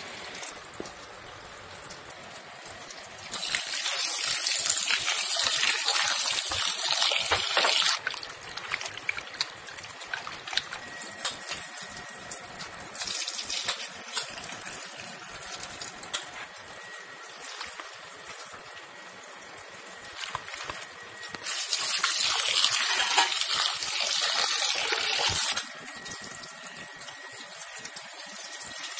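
Raw chicken pieces being washed in a bowl at a steel kitchen sink. A tap runs hard into the bowl twice, each time for about four seconds. In between, the water splashes as the pieces are handled and the wash water is tipped out into the sink.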